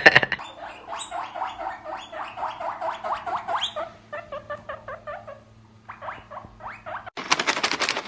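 Small pet rodent squeaking: a fast run of short rising squeaks, several a second, over a low steady hum. A brief, louder noisy burst comes near the end.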